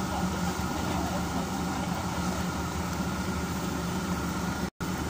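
Steady engine drone and road noise heard inside a Scania CN270UB city bus as it drives slowly along a street. The sound drops out for a split second near the end.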